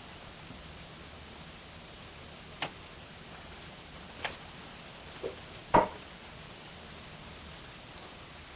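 Steady rain falling, an even hiss, with a few sharp knocks scattered through it; the loudest comes a little past halfway.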